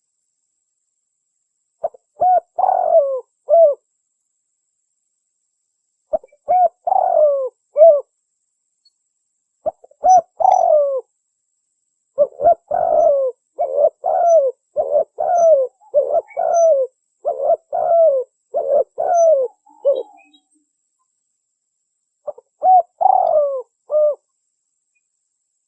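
Spotted dove (derkuku/tekukur) cooing: short phrases of several low, soft coos separated by silent gaps, with one longer run of repeated coos in the middle. It is a recorded lure call used to draw in wild doves.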